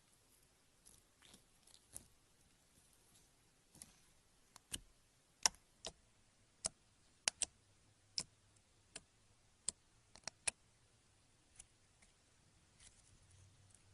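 Slime being pressed and stretched by hand, giving a string of sharp, irregular clicks and small pops, loudest and most frequent in the middle.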